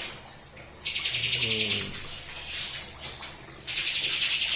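Caged songbirds, among them white-rumped shamas (murai batu), chirping rapidly and continuously, with a buzzy trill about a second in and another near the end.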